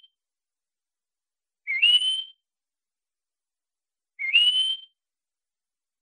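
Spectacled finch (Callacanthis burtoni) calling: two short, clear whistled notes about two and a half seconds apart, each rising quickly and then held briefly.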